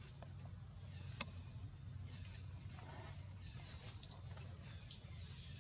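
Steady high-pitched drone of insects, crickets or cicadas, over a low steady rumble, with a few faint sharp clicks about a second in, near four seconds and near five seconds.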